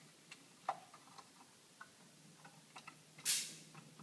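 Small plastic cable connectors clicking and wires rustling as wire harnesses are plugged back into an LED TV's main board: scattered light clicks, with a short rustle about three seconds in that is the loudest sound.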